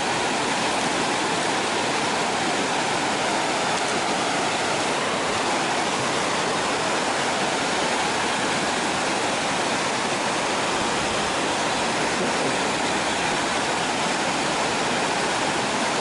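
Creek water rushing steadily where it spills over a small weir, an even, unbroken wash of noise.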